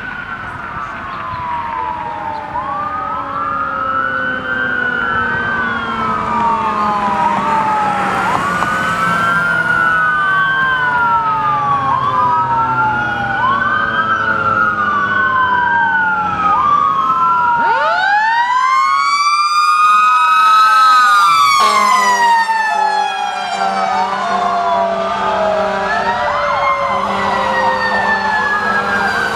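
Sirens of a fire engine and an aerial ladder truck responding code, several overlapping sirens wailing up and down every couple of seconds and growing louder as they approach. About two-thirds through, one siren sweeps up high and loud, and a steady lower tone joins near the end.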